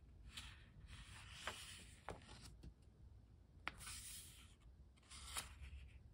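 Pages of a small Pentalic sketchbook being turned and smoothed by hand: several faint paper rustles and slides, with a few light ticks in between.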